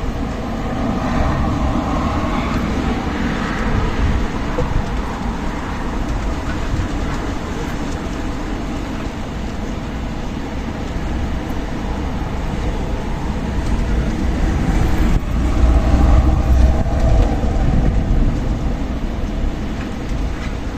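Strong desert wind blowing steadily with a deep rumble, gusting harder about three-quarters of the way through before easing.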